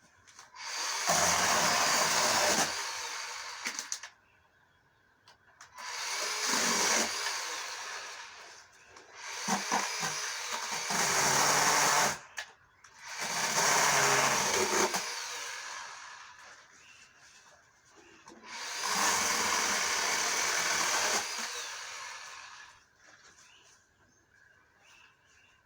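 24-volt cordless electric chainsaw with a 10-inch bar running in about five spells of a few seconds each, cutting branches, with short near-quiet pauses between cuts.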